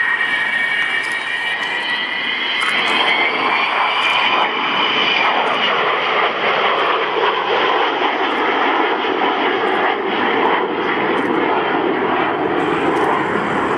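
Avro Vulcan bomber's four Rolls-Royce Olympus turbojets passing low overhead. A high whine in several pitches rides over the jet noise for the first five seconds or so, then fades into steady broad jet noise as the aircraft banks away.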